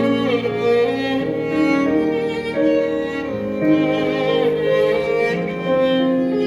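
Small string ensemble of violins and cello playing a slow, legato melody over held bass notes.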